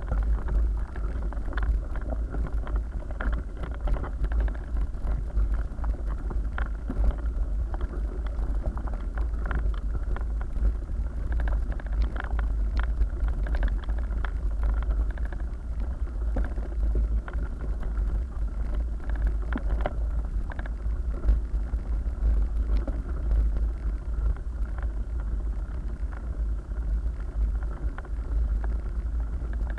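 Mountain bike riding over a rough gravel track, picked up by a camera mounted on the bike: a steady deep rumble of vibration with many small rattles and crunches from tyres on loose stones.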